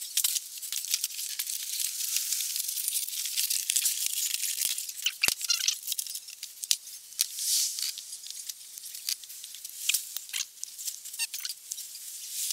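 Cardboard being handled and shifted close up: rustling and scraping with scattered sharp clicks and light knocks.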